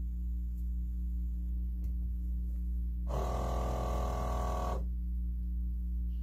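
A steady low electrical hum, joined about three seconds in by a louder buzzing sound that lasts about a second and a half and then stops.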